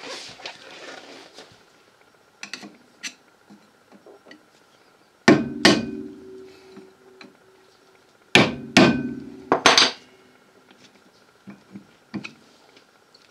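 A hammer striking a flathead screwdriver set against the edge of a 1972 Chevrolet Vega's front wheel-hub dust cap, driving the cap off. There are lighter clinks, then two pairs of sharp metal blows about five and eight seconds in and one more just after, each leaving a short metallic ring.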